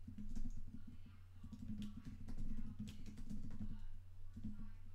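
Typing on a computer keyboard: quick runs of key clicks in short spurts, over a steady low hum.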